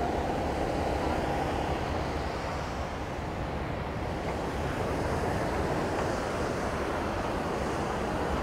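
Sea surf breaking and washing up a sandy beach in a steady roar of noise, with wind rumbling on the microphone.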